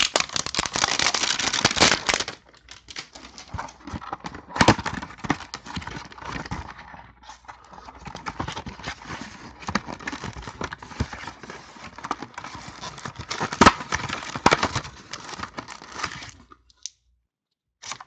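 Plastic shrink-wrap crinkling and tearing, with quick clicks and scrapes of cardboard, as a sealed trading-card box is opened. It is busiest in the first two seconds and stops shortly before the end.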